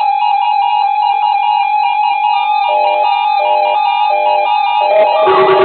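A steady electronic alert tone, typical of an Emergency Alert System attention signal, held with a melody of notes playing over it. About five seconds in the tone stops and guitar music takes over.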